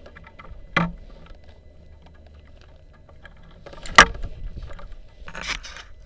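A few sharp clicks and knocks over a faint low rumble: one a little under a second in, a loud one about four seconds in, and a short clatter near the end.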